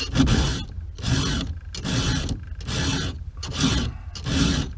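A round file being pushed by hand across the cutter teeth of a Stihl 050 AV's saw chain: about six even strokes, roughly one every three-quarters of a second, each a short scratchy rasp with a brief quiet gap as the file comes back. The chain is being sharpened, its gullets filed out.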